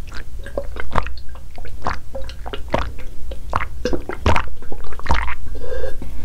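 A person gulping a drink from a cup, close to the microphone: a quick run of wet swallows and mouth clicks, two or three a second.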